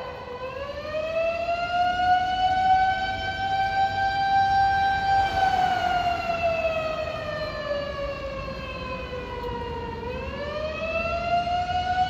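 Fire engine's motor-driven mechanical siren winding up, holding its pitch for a few seconds, then slowly winding down before winding up again near the end.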